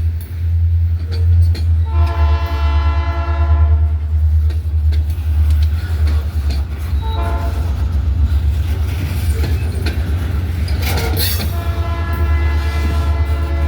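EMD SD40-2 diesel locomotive's horn sounding a long blast, a short one, then another long blast starting near the end, over the steady low rumble of its 16-cylinder two-stroke diesel engine hauling a freight train.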